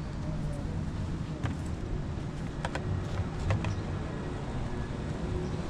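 Steady low outdoor rumble, with a few light clicks and knocks about halfway through.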